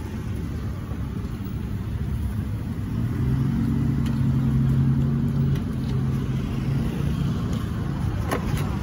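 Low rumble of street traffic, with a motor vehicle's engine running steadily and growing louder for a couple of seconds in the middle before easing off.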